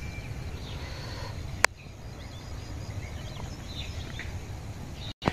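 Rural outdoor ambience: a steady low rumble with faint, scattered distant bird calls. A single sharp click about a second and a half in.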